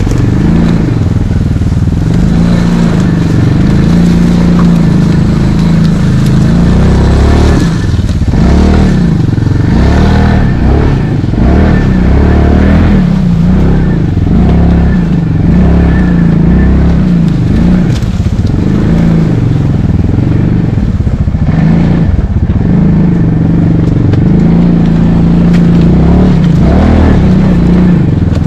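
ATV engine running under load as the quad crawls over rough forest ground, heard from on the bike. The engine note holds steady at first, rises and falls with the throttle through the middle, and steadies again near the end.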